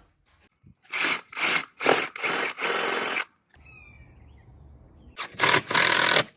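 Power drill running in short bursts of a fraction of a second each, then a longer run, a pause, and two more bursts near the end, as when driving screws or drilling.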